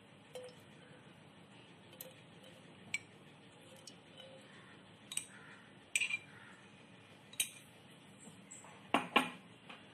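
Light clinks and knocks of a stainless-steel pan and kitchen utensils being handled on the stove, about eight scattered strikes with a double knock near the end.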